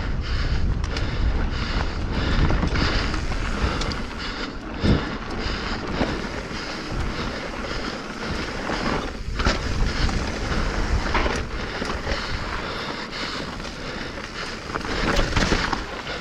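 Mountain bike descending dirt singletrack at speed: wind buffets the microphone and the tyres rush over the dirt. The bike's chain and frame give scattered knocks and rattles over roots and rocks.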